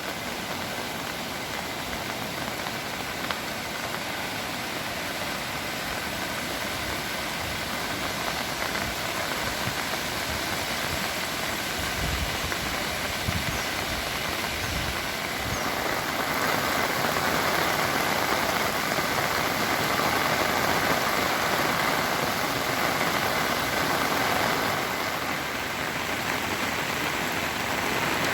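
Ulhas River in monsoon spate: a steady rush of fast-flowing floodwater that swells louder a little past halfway and eases back near the end.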